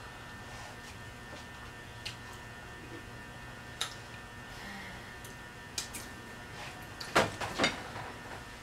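Quiet chewing and mouth clicks of someone eating a pizza slice over a steady electrical mains hum, then two short sharp breaths out about seven seconds in, blowing against the burn of an extra-hot jalapeño.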